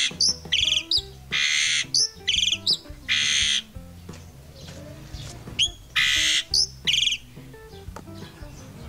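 Caged black-and-white starling giving loud harsh, rasping calls mixed with short whistles, in quick succession in two runs with a pause of about two seconds in the middle. Faint background music underneath.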